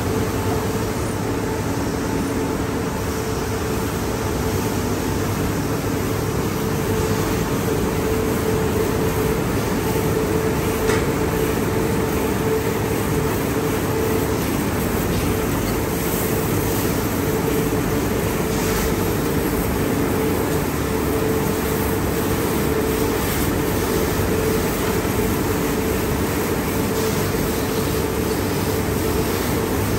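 Automatic car wash tunnel machinery running: a steady hum of pumps and motors under a constant hiss of high-pressure water spray.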